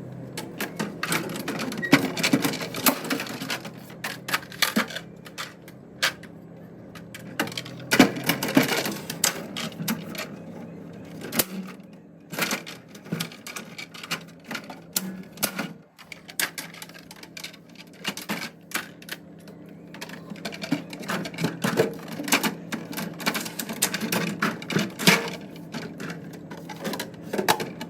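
Many small clicks, taps and knocks, irregular and close together, from food containers and fridge items being handled and set down.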